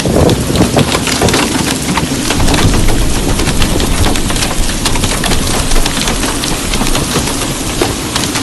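Windstorm with heavy rain: wind buffets the microphone with a deep rumble while dense rain clatters on surfaces in a constant crackle of sharp ticks.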